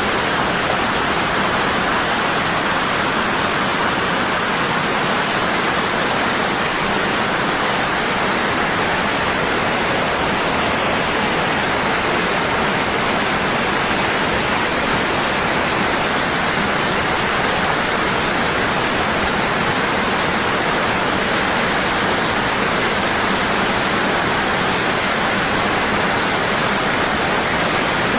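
Waterfall falling strongly and constantly: a steady, even rush of water.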